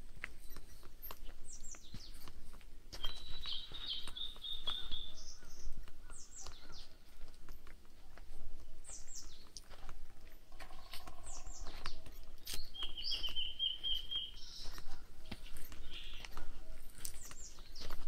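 Forest birds singing: many short, high calls that slide downward, and twice a fast, even trill lasting about two seconds, one early on and one past the middle. Footsteps on a dirt and rock trail crunch underneath.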